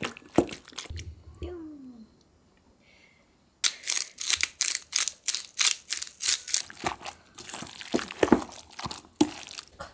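Wooden spoon mashing a block of tofu against a stainless steel bowl, with scattered scrapes and a brief squeak. After a short pause, a hand pepper mill grinding in a fast run of crackling clicks.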